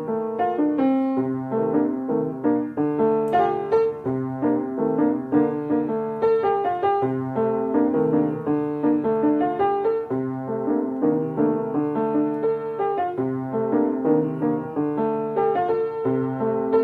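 Piano music, a steady stream of notes over a repeating low bass line.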